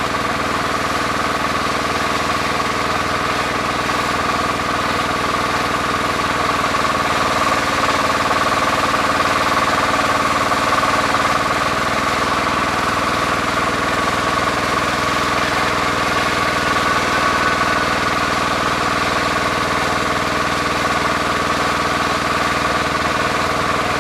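Bulldozer's diesel engine running steadily, with a steady whine above the engine note.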